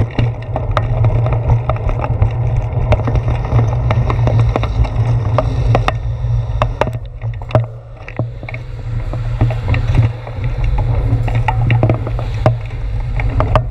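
Wind rushing over a handlebar-mounted GoPro Hero 4 on a moving bicycle, a steady low rumble with many small knocks and rattles from the ride shaking the mount. It eases briefly about eight seconds in.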